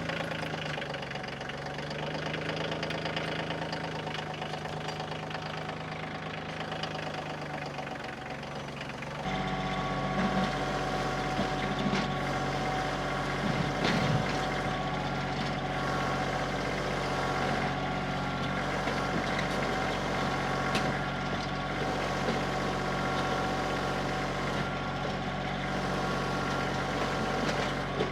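Kioti CK2610 compact tractor's diesel engine running steadily under load while pulling a box blade through dirt; it gets louder and changes pitch about nine seconds in.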